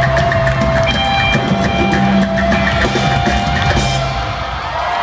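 Live rock drum solo in a concert arena: a drum kit and percussion hit in a dense, driving pattern over sustained low bass and keyboard tones.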